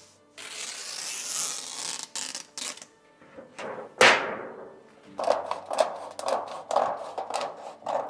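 A large sheet of paper backing from adhesive remake sheet rustling and crackling for about two seconds, then one sharp loud knock about four seconds in, followed by a quick irregular run of short scuffs and taps as the sheet is handled and pressed on. Faint background music runs underneath.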